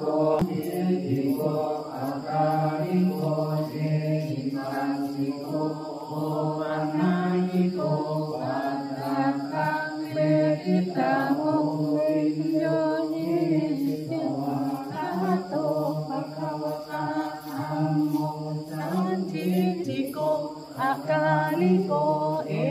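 Buddhist chanting by a group of voices during a candlelit circumambulation, a steady recitation on a narrow range of pitch, phrase after phrase with brief breaks.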